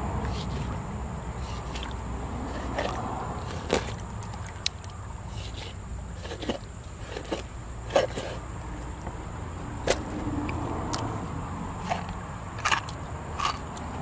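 Knife scoring a red tilapia on a plastic cutting board: a dozen or so scattered sharp taps as the blade cuts through the fish and strikes the board, over a steady low background rumble.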